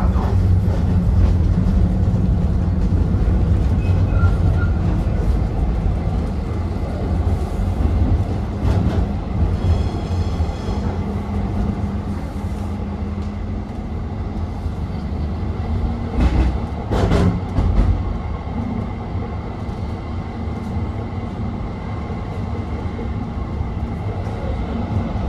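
A tram running along its rails, heard from inside the car: a steady low rumble with a hum, and a few louder knocks about two-thirds of the way through.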